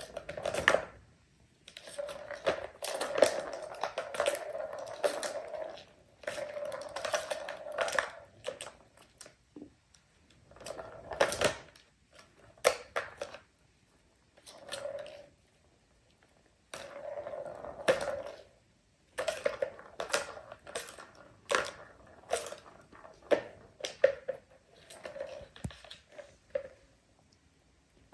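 Plastic balls rolling round the tracks of a three-tier plastic cat toy tower as kittens bat at them. The rolling rattle comes in bursts of one to a few seconds, again and again, with sharp clicks and knocks of the balls striking the plastic.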